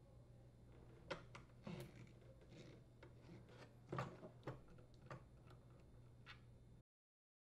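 Faint, scattered clicks and ticks of a screwdriver turning screws out of a plastic refrigerator auger motor housing.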